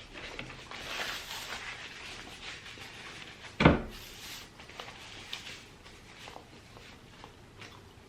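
Close-miked eating sounds of a person working through chicken biryani: chewing, mouth noises and small clicks. One loud knock comes about three and a half seconds in.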